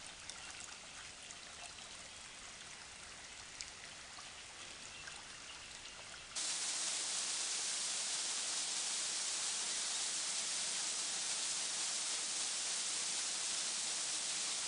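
A stream trickling and running, with a few small ticks over it. About six seconds in it cuts abruptly to a much louder, steady rushing hiss.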